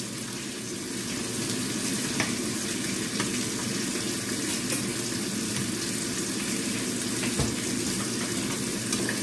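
Squid frying in oil in a pan, a steady sizzle, with a few faint clicks.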